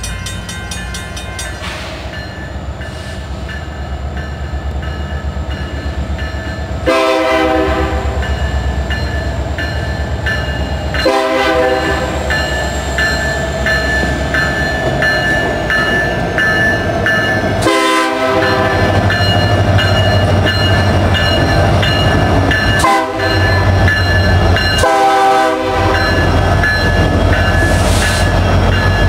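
Union Pacific diesel-electric freight locomotive approaching a grade crossing, sounding its air horn in a series of blasts over a steadily growing engine and wheel rumble. The crossing bell rings steadily underneath.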